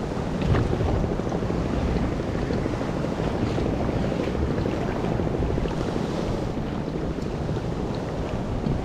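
Wind blowing on the microphone over choppy sea, with waves washing and splashing around a kayak; a steady, low-heavy rush with no clear single event.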